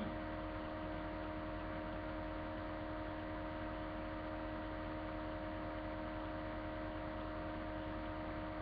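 Steady electrical hum with several fixed tones over an even hiss: the background noise of a webcam's built-in microphone. No other sound stands out.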